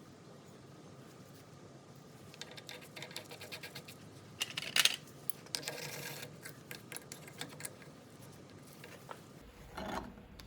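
Small metal parts being handled: scattered light clicks and scraping, with a sharper clatter about five seconds in.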